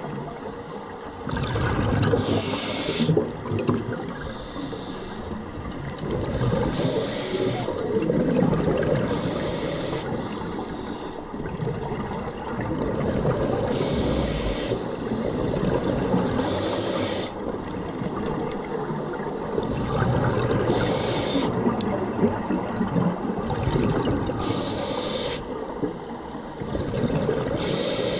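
A scuba diver breathing through a regulator underwater: a short hiss on each breath in, then a rush of bubbling exhaust on each breath out, repeating about every six seconds.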